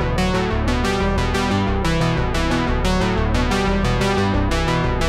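Background music: synthesizer and electric-piano style keyboard music with a steady beat.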